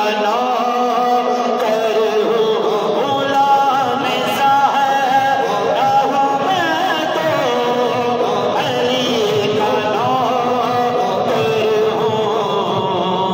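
A voice singing a slow, ornamented devotional melody (a naat or qasida), with long held notes that waver in pitch.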